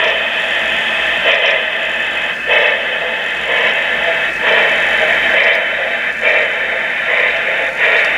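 Recorded steam-locomotive sounds from a QSI Revolution DCC sound decoder, played through small speakers in an HO-scale Union Pacific Big Boy model running slowly: a steady steam hiss with an exhaust chuff about once a second, unevenly spaced. The sound is thin, lacking bass, as from tiny speakers.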